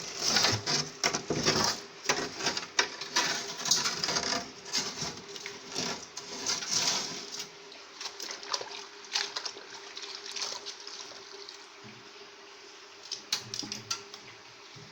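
Warm soapy water splashing and trickling, with clicks and knocks of handling. It is busy for about the first half, then quieter over a faint steady hum.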